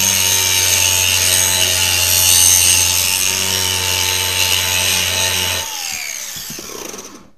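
Angle grinder grinding the steel end of a hydraulic top link cylinder, a steady high motor whine over harsh grinding. About five and a half seconds in the disc comes off the metal and the grinder is switched off, its whine falling in pitch as it spins down.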